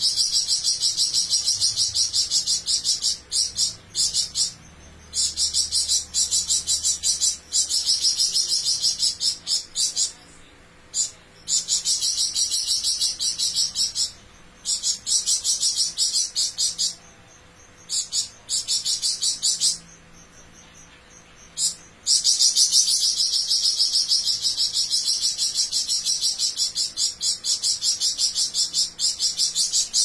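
Caged flamboyan songbird singing in long bouts of a rapid, high trill, each lasting several seconds and broken by short pauses, the longest bout in the last third.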